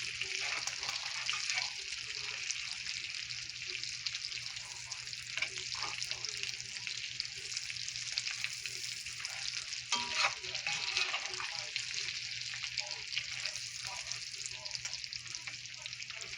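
Food sizzling and crackling in a hot frying pan, with one knock about ten seconds in.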